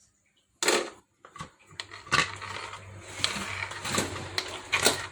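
Metal clattering and clanking: a sudden loud knock just under a second in, then a run of irregular knocks and scrapes over a low steady hum.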